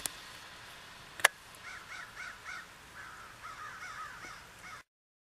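Bald eagle calling in two runs of quick, piping notes, the second run longer, over a steady hiss. A sharp click comes about a second in, and the sound cuts off abruptly near the end.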